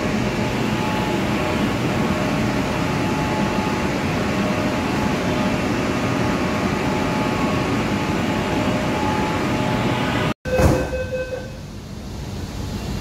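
Kolkata Metro train's steady hum with faint whining tones. About ten seconds in, the sound briefly drops out, then comes a sharp knock and a short pitched tone lasting about a second, after which the hum is quieter.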